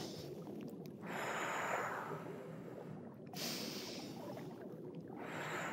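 A woman breathing slowly and audibly in and out, long deep breaths of a yoga breathing exercise, each swelling and fading over a second or two.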